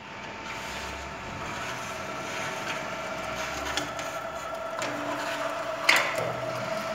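Small roll-forming machine running: its drive motor and gear-driven forming rollers give a steady whine, with scattered light clicks as a flat steel strip feeds through the roller stands. A sharp metallic click comes about six seconds in.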